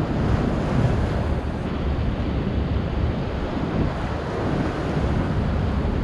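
Strong wind buffeting the microphone over rough surf breaking against a rocky breakwater: a steady, heavy rumble of wind and sea with no distinct single crashes.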